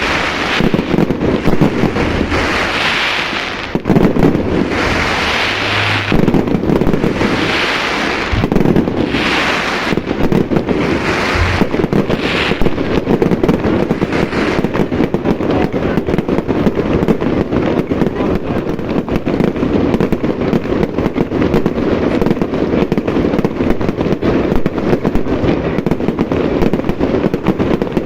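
Fireworks display: a dense, continuous barrage of bangs and crackling. In the first half a hissing swell rises and fades several times over the bangs.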